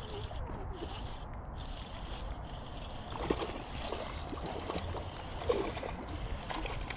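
Wind rumbling on the microphone over water, with small splashes from a hooked bass at the surface near the bank, the sharpest about three and five and a half seconds in.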